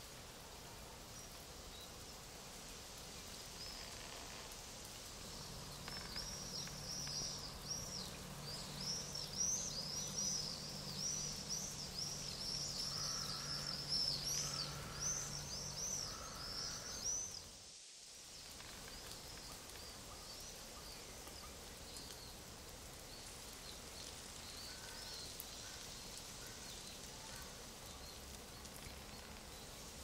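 Forest birds calling in a quick run of short, high chirps over a steady rustling hiss for about ten seconds, with a faint low hum underneath. The whole sound cuts out for a moment, and then only a few faint chirps are left over the hiss.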